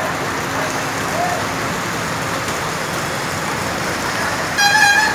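Heavy rain and rushing floodwater make a steady hiss. Near the end a vehicle horn sounds once for about half a second, louder than the rain.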